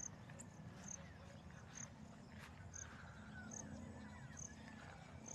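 Faint, high insect chirp repeating evenly about once a second over the quiet background of open countryside.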